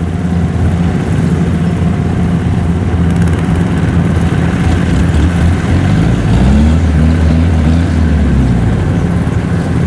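Small farm tractor engine running under heavy load as it hauls a cart stacked three layers high with rice sacks across a field. The engine note drops and grows heavier about six seconds in, then settles back about two seconds later.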